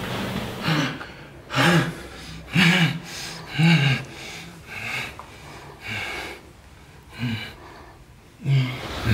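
A person crying, with breathy gasping sobs about once a second.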